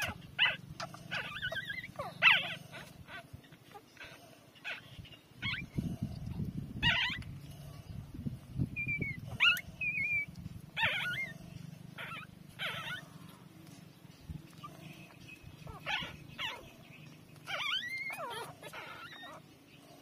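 Newborn puppies squeaking and whimpering as they nurse: a string of short, high whines, some gliding up or down in pitch and some overlapping, scattered throughout.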